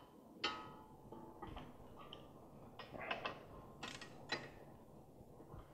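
Faint, scattered metallic clicks and clinks of a socket wrench working on the 12 mm bolts that hold the factory brake dust shield to a Subaru WRX front hub, as the bolts are broken loose. Some clinks ring briefly, and several come close together a few seconds in.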